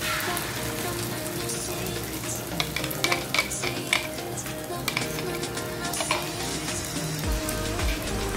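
Beaten egg sizzling as it is poured into a hot oiled iron karahi, then a metal spoon scraping and clicking against the pan as the egg is spread. Background music plays along.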